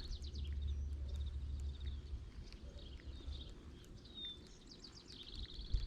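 Faint outdoor ambience: small birds chirping and trilling, with one short whistled note. Under them is a low rumble that fades out after about two seconds.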